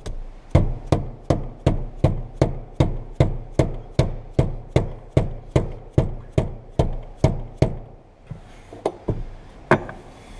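Rapid, evenly spaced hammer taps driving the fuel pump assembly's retaining ring tight, about two to three taps a second for some twenty strikes, then a pause and a few last scattered taps near the end. The ring is being tapped round so the pump's gasket seats and seals.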